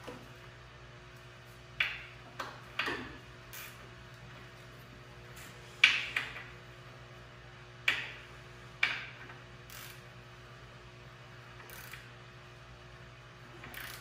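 Sharp metallic clanks and clinks of a hand wrench working a fitting on the steel frame of a 1971 Bobcat M600 skid steer. There are about seven irregular knocks, each ringing briefly, and the loudest comes about six seconds in. A faint steady hum sits underneath.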